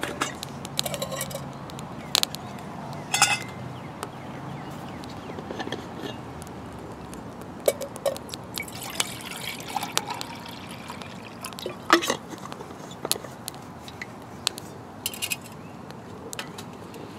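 Wood fire crackling in a small folding steel wood stove, with scattered sharp pops, while water is poured into a metal cooking pot partway through.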